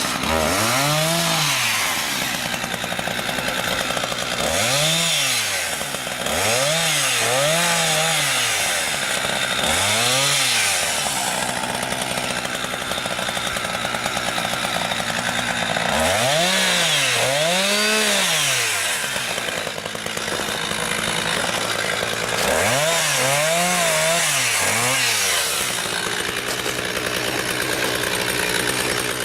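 Husqvarna 359 two-stroke chainsaw running at high revs, its pitch rising and falling several times as it cuts frozen green firewood. The operator thinks the chain is dull and needs sharpening.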